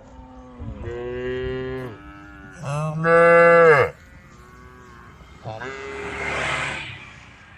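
Cows mooing as they call to the herd: three long moos. The second, about three seconds in, is the loudest, and the last is breathier.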